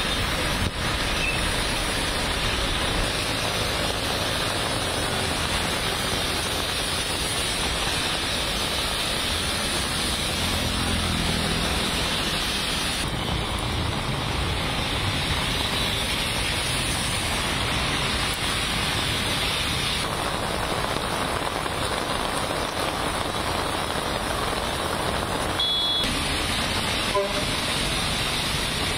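Heavy rain pouring onto a flooded city road, a steady hiss of rain and splashing with traffic moving through the water. A brief high beep sounds near the end.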